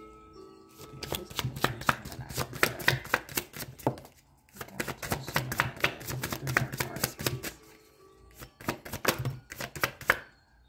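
A deck of tarot cards being shuffled by hand: fast runs of crisp card clicks in three bouts, with short pauses between them.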